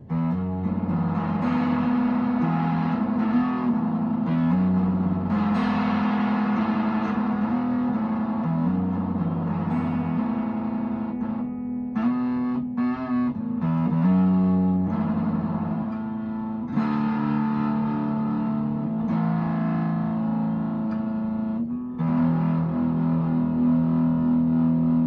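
Electric guitar played through a breadboarded op-amp fuzz pedal into an amp: a TL072 dual op amp with diodes clipping in the feedback loop, gain set halfway. Distorted chords are held and changed every second or two, with a few short choppy strums around the middle.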